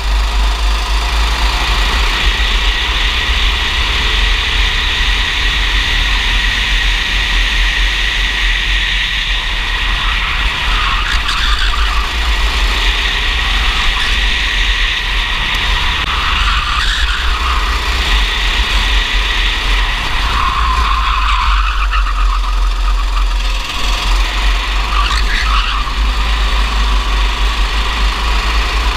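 Racing kart's engine running hard as the kart laps, heard onboard under a heavy low rumble of wind on the microphone. The engine's pitch dips and climbs again several times as the kart brakes and accelerates through corners.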